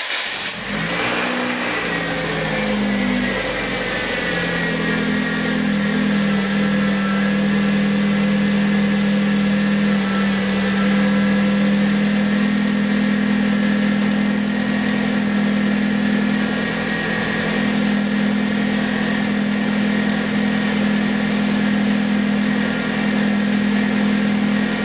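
2011 Hyundai Genesis Coupe's 2.0-litre turbocharged four-cylinder engine starting on freshly changed oil and idling. The idle wavers for the first few seconds, then settles into a steady idle.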